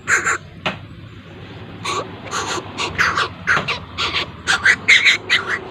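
Young bird of prey (raptor chick) giving repeated shrill begging calls while being fed. After a short pause about a second in, the calls come in a quick series, about three a second.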